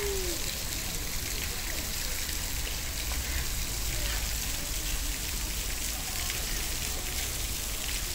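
Steady hiss of falling or running water, like light rain, with a low rumble under it and faint distant voices now and then; no distinct splashes stand out.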